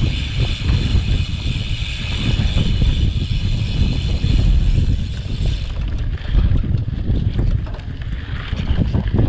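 Mountain bike descending a rough mountain trail: wind buffeting the microphone with a heavy rumble, and the bike clattering over the ground. A steady high hiss stops about six seconds in, after which short clicks and rattles come through.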